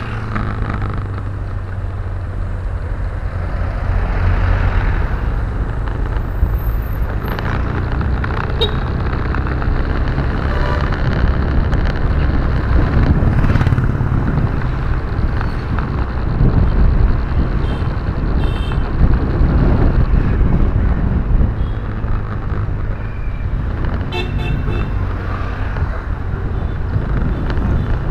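Steady low rumble of engine and road noise inside a moving car's cabin. A few brief horn toots from traffic come near the middle and again later on.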